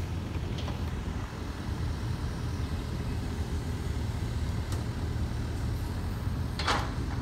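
Steady low outdoor rumble by a river embankment, with a short hiss about two-thirds of the way through.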